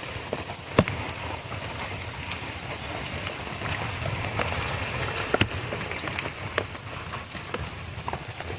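Steady rain hiss with a handful of sharp pops from a campfire of burning fat wood, the loudest about a second in and again past the five-second mark.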